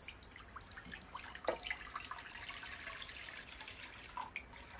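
Water poured in a steady stream from a glass measuring cup into a nonstick wok, splashing as it fills the pan.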